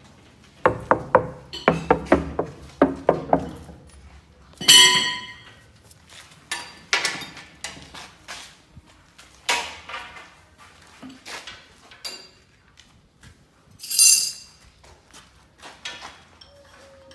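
Metal knocking and clinking: a quick run of about eight knocks, then scattered single knocks and a couple of ringing clinks.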